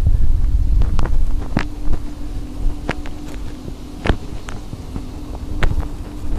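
Wind buffeting the microphone, strongest at first and then easing, with footsteps clicking at an uneven pace and a steady low hum underneath.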